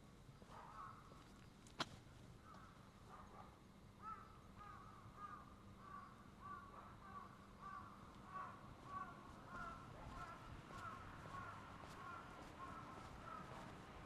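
Crows cawing in a long series of short, repeated calls, about one to two a second, over a faint steady hum. A single sharp click just under two seconds in.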